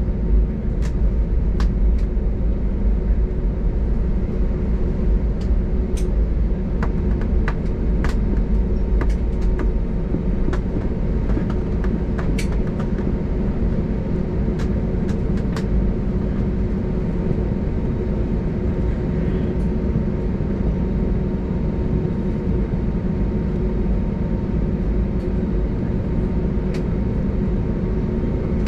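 Cabin noise of an Airbus A320neo on the ground after landing: a steady low rumble with a faint hum, and scattered sharp clicks through the first half.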